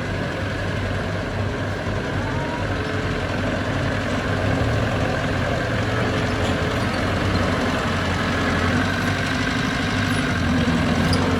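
Heavy diesel engine of earthmoving equipment running steadily, a little louder from about four seconds in.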